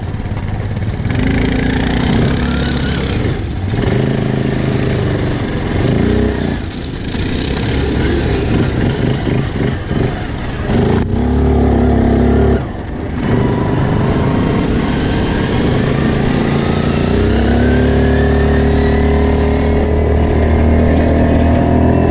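Quad bike engine running while riding, its pitch rising and falling as the throttle is opened and eased, with a few brief drops in level. Over the last few seconds the pitch climbs steadily as it accelerates.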